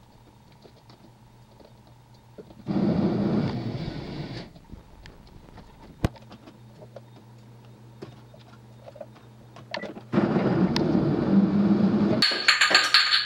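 Countertop electric blender running in two spells, about two seconds once a few seconds in and again from about ten seconds on, blending chopped peppers and onions, the second spell turning higher-pitched near the end. Light taps in between as pieces are added through the lid.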